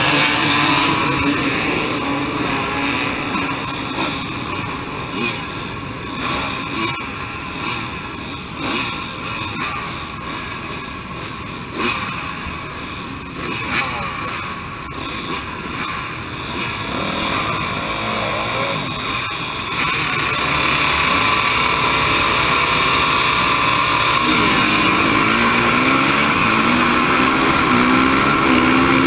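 Dirt bike engines running on a race start line, then the rider's own bike pulling away, its engine note rising again and again as it accelerates near the end.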